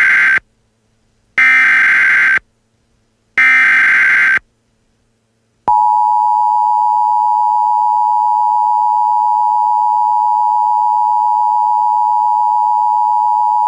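Emergency Alert System tones: the end of one SAME digital data burst and two more, each about a second long with a second's gap, the header that opens a new alert. About six seconds in, the steady two-tone EAS attention signal (853 and 960 Hz) starts and holds.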